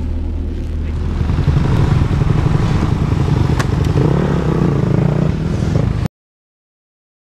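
Motocross dirt bike running hard with a dense, rumbling roar and a clatter of thrown dirt, with a single sharp click a little past halfway. The sound cuts off abruptly to silence about six seconds in.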